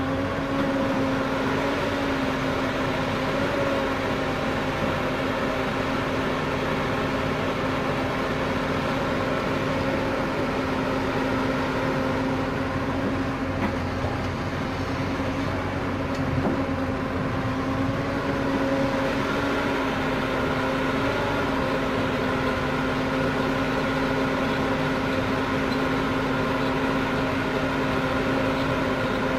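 Diesel engine of a Hyundai 220 hydraulic excavator running steadily under load as it digs and swings soil into a dump truck, its pitch shifting slightly now and then. The truck's idling diesel is likely blended in.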